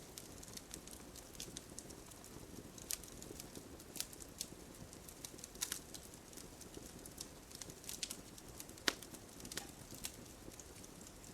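Wood campfire crackling, with irregular sharp pops and snaps over a low, steady rush of burning; the loudest pop comes near the end.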